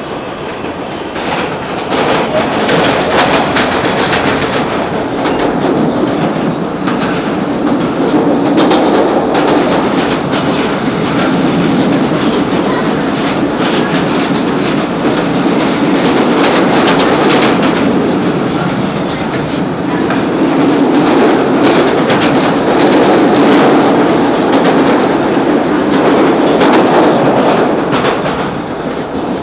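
Interior of a PATH PA5 rapid-transit car running between stations: a steady rumble of wheels on rail, with a rapid irregular clicking and clacking over the track throughout.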